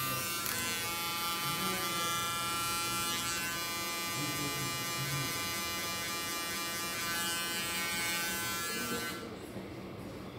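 Cordless electric hair clippers running with a steady, high-pitched buzz as they trim the short hair at the side of a man's head over a comb. About nine seconds in, the buzz drops away and turns quieter.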